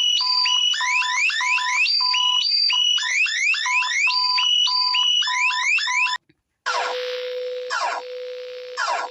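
Two synthetic EAS-style alarm tones, one after the other. The first is a fast repeating pattern of steady high beeps and quick rising sweeps, and it cuts off about six seconds in. After a brief gap a second alarm starts: a steady low tone with a rising sweep about once a second.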